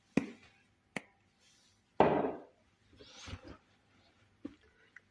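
Kitchen utensils and containers being handled: two sharp knocks, then a louder clatter about two seconds in, followed by a shorter, softer clatter and a few light ticks.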